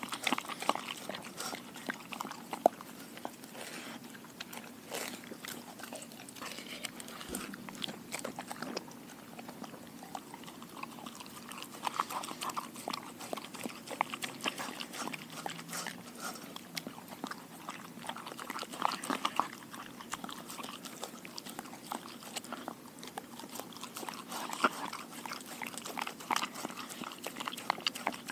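German Shepherd mix eating a raw diet of ground meat and chicken feet from a stainless steel bowl: close-up chewing, with irregular sharp clicks and crunches throughout.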